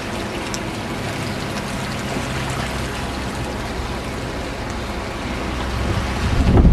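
Steady rush of flood water flowing over the beach. Wind buffets the microphone more strongly near the end.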